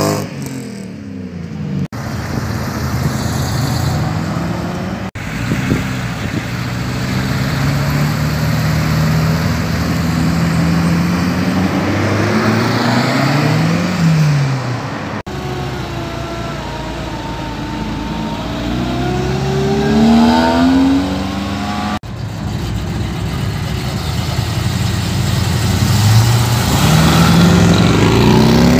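Sports and custom cars pulling away one after another, their engines accelerating with the pitch climbing and dropping at each gear change. There are several short passes, and the sound breaks off abruptly at each cut.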